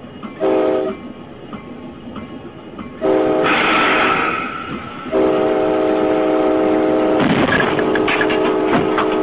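Locomotive horn sounding a short blast, then a longer one, then a long held blast, each a chord of several tones. A loud rushing noise comes with the second blast, and a burst of noise with a clatter of sharp knocks sounds near the end.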